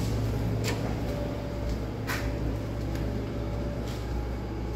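Steady low mechanical hum, with two brief noises, one under a second in and one about two seconds in.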